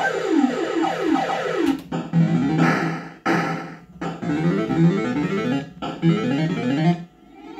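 Bell-Fruit Cash Explosion fruit machine playing its electronic sound-effect tunes while the reels spin. A run of quick, repeating falling note patterns is broken about two seconds in by two short noisy bursts, then more rapid note runs follow and stop about seven seconds in.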